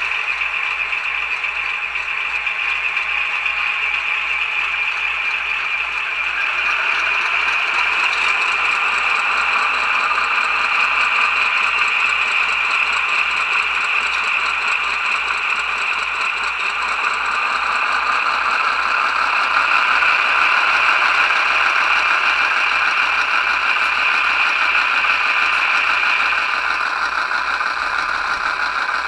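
Two HO-scale model locomotives' sound decoders, a QSI Titan and an older QSI Q1A, play ALCO 244 diesel prime-mover sound together through their small speakers, a steady rattling engine sound. It fills out and gets somewhat louder a few seconds in.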